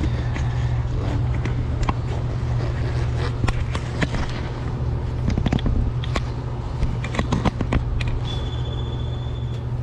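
Scattered clicks, knocks and light scrapes of hand tools and handling in an engine bay, over a steady low hum. A thin high tone sounds for about a second near the end.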